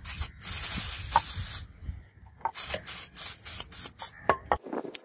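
Liquid sprayed onto a tape-masked steel knife blade: one long hiss of about a second and a half, then a quick run of short spray bursts that stop just before the end.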